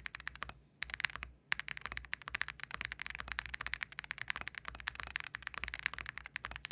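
Fast typing on a mechanical keyboard: a quick run of sharp key clicks, briefly pausing twice near the start.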